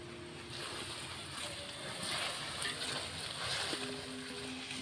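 Longganisa sausages sizzling and bubbling in their cooking liquid in an aluminium wok, stirred with a bamboo stick. The hiss grows louder about half a second in.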